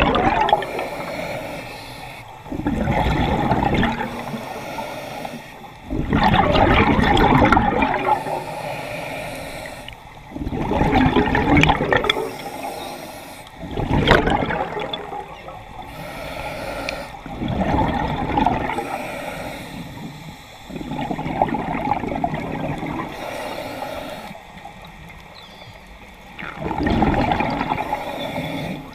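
Scuba diver breathing through a regulator underwater: a rush of exhaled bubbles every three to four seconds, with quieter inhalations between, muffled through a GoPro's waterproof housing.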